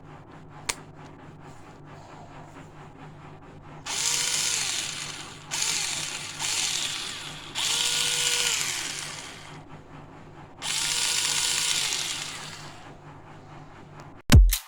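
Small cordless drill-driver's motor run in four short bursts, the whine rising as it spins up at each trigger pull and falling as it winds down, the tool working on its repaired battery.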